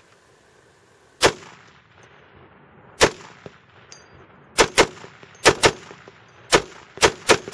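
Vigilance Rifles M14 .50 BMG semi-automatic rifle firing a string of about ten shots: the first two are a couple of seconds apart, then the shots come faster, some in quick pairs.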